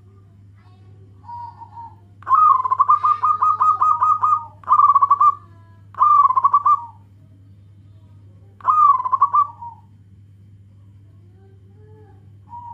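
Zebra dove (perkutut) cooing: a soft opening note, then a long rolling coo of quick pulses lasting about two seconds, followed by three shorter pulsed coos. A steady low hum runs underneath.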